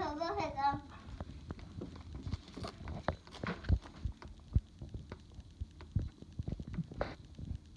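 A toddler chewing and crunching romaine lettuce, heard as irregular soft low knocks with a few sharper clicks. A brief babble opens it.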